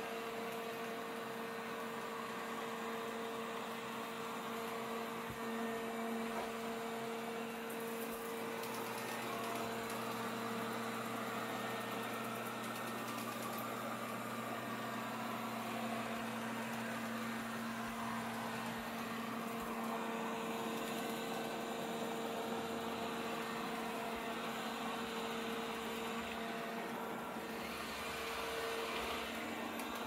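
Robot vacuum running as it cleans: a steady motor and fan whir with a constant two-tone hum.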